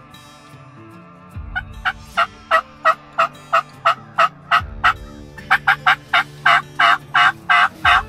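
Two runs of turkey yelps, short rasping notes about three a second, the first starting about a second and a half in and the second, longer and quicker, after a short break in the middle.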